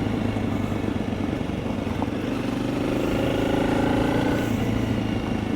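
Honda CRF300 Rally's single-cylinder four-stroke engine running at low speed, pulling a little harder past the middle and easing off near the end.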